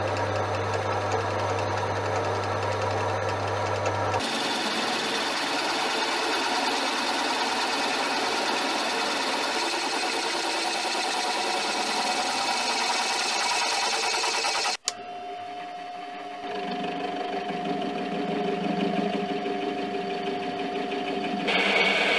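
Drill press running and drilling into a mini lathe's green tailstock casting: a steady motor hum with the cutting sound of the bit. The sound shifts abruptly about 4 seconds in, again after a brief dropout about 15 seconds in, and once more near the end.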